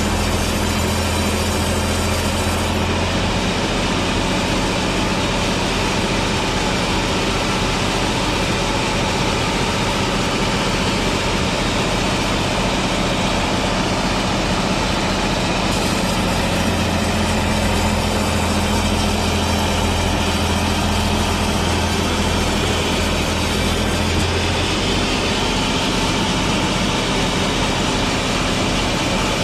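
Sawmill machinery running steadily and loudly. A deep engine-like hum is strong for the first few seconds and again from about halfway to a few seconds before the end, and a dense hiss fills the stretches between.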